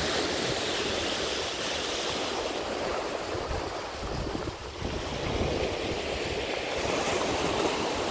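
Surf washing onto a sandy beach, a steady rushing that swells and eases, with wind on the microphone.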